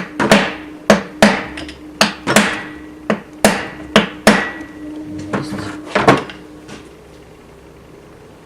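Hammer blows on metal parts of a Suzuki GSF 400 Bandit engine being dismantled. About a dozen sharp strikes fall mostly in quick pairs, each leaving a short metallic ring, and they stop about six seconds in.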